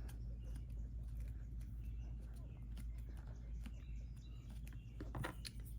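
Faint light taps and clicks of paper and card being handled and pressed in place, over a steady low hum.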